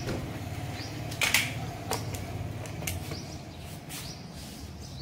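Two sharp plastic clicks, one about a second in and a lighter one just after, as an electric plug is pushed into a wall socket on a switchboard, over a steady low hum.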